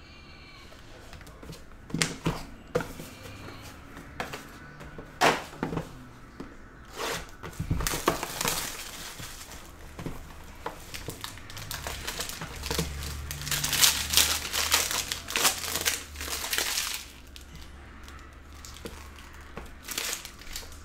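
Trading-card packaging crinkling and tearing by hand, with scattered clicks and taps from card holders and boxes being handled. The rustling is busiest in a long stretch past the middle.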